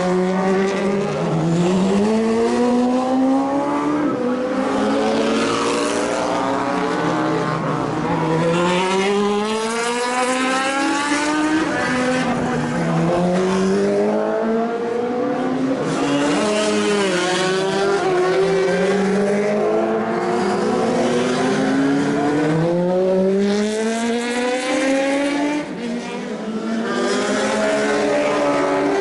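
Racing motorcycle engines at full throttle, accelerating hard up through the gears: each engine note climbs, drops at the upshift and climbs again, over and over.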